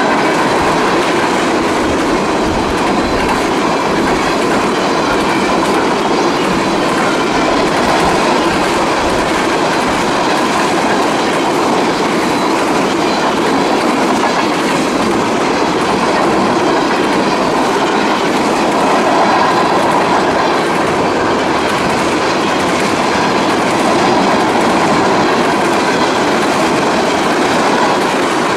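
Freight train cars rolling past at speed: a steady rumble and clatter of steel wheels on the rails, with a faint high steady ring over it.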